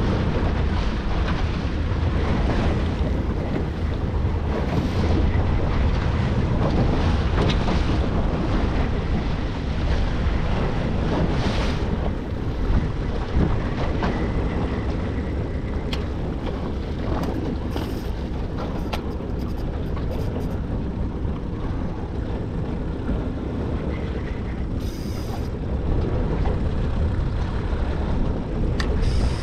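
Steady wind rushing over the microphone together with sea water washing around a small aluminium boat's hull.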